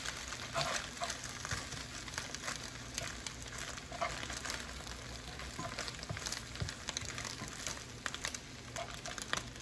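Beef steak strips and eggs sizzling in an electric skillet, a steady crackling hiss, with the occasional scrape and tap of a spatula turning and pressing them in the pan.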